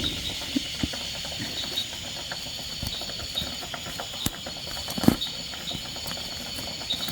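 Insects calling in a steady high chorus, with a pulsing upper note. Scattered light clicks and knocks sound over it, the sharpest about five seconds in.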